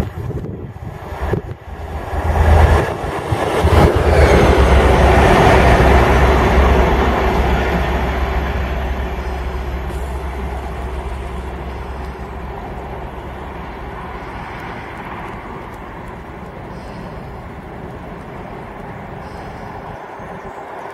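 Class 57 diesel-electric locomotive running light engine, its EMD two-stroke diesel engine rumbling deeply as it passes. The sound is loudest a few seconds in and then dies away steadily.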